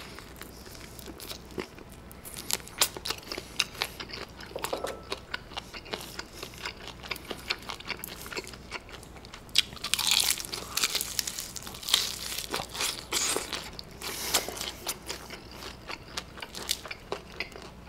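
Close-up crunching and chewing of crispy, thin-battered fried chicken being bitten and eaten, full of sharp crackles, with louder bursts of crunching in the second half.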